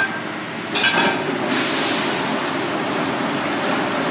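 Liquid being poured into a stainless steel pot of dry chili-powder seasoning, a steady rushing splash that starts about a second and a half in. It comes after a few light scrapes of a silicone spoon against the pot.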